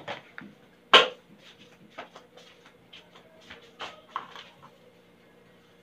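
Household handling sounds: a sharp knock about a second in, then scattered light clicks and taps, over a faint steady hum.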